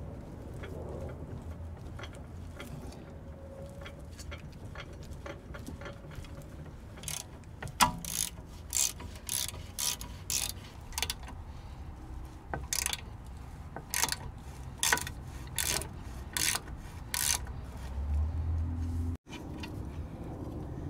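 Hand socket ratchet clicking as it is swung back and forth to undo the ball joint bolts on the lower control arm. About seven seconds in, a run of quick, evenly spaced clicks starts, two or three a second, and it stops a few seconds before the end.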